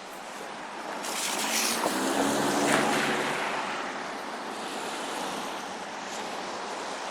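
A vehicle passing on a slushy, snow-covered street. A swell of tyre hiss through wet snow carries a faint engine hum and peaks a few seconds in.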